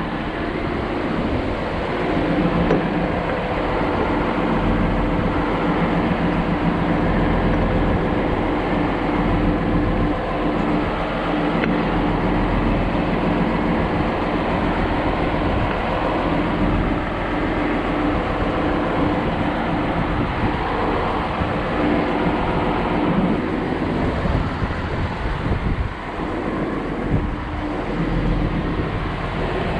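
John Deere 710D backhoe's diesel engine running steadily, a continuous low rumble with a steady hum of tones over it.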